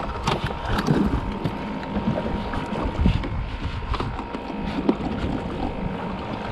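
Scattered knocks and bumps of handling aboard a small inflatable boat, over steady wind and water noise.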